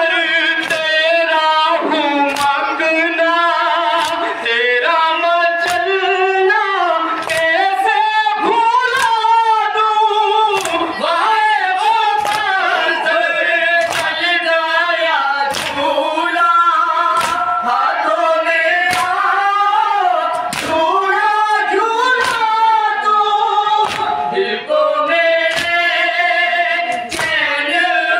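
Noha, an Urdu lament, chanted by a lead male voice and a boy with a group of mourners joining in. Sharp chest-beating (matam) slaps land on the beat a little more than once a second.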